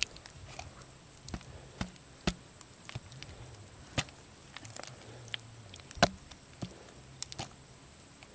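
A long-handled digging tool chopping into hard, cracked dried mud in irregular blows, each a sharp thud, with the loudest about six seconds in.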